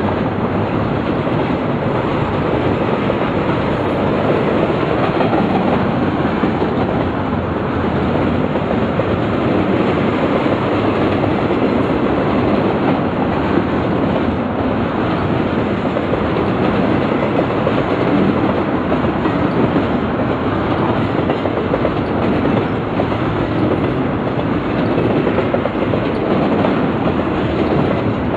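Double-stack intermodal freight cars rolling past at steady speed: a continuous rumble of steel wheels on rail.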